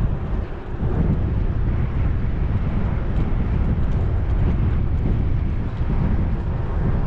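Wind rushing over an action camera's microphone while riding a bicycle, a steady low rumble with faint rattles and clicks on top.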